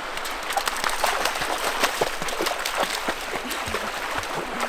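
Stream water running and splashing over rocks: a steady rush full of many small, sharp splashes and drips.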